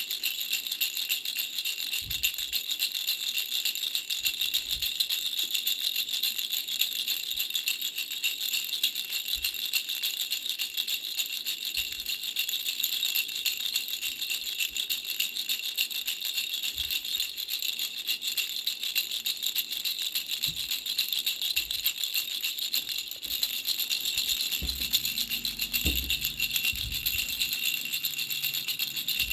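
Baby's three-flower bell rattle shaken without pause, a steady high jingling of small bells. A few soft low knocks from handling come through, more of them near the end.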